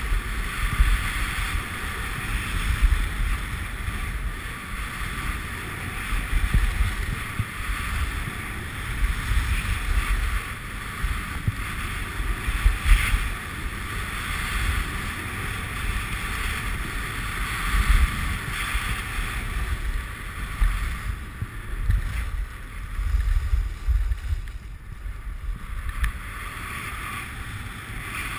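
Wind buffeting the microphone of a skier moving fast downhill, in gusty low rumbles, with the swelling hiss of skis sliding and turning on packed snow.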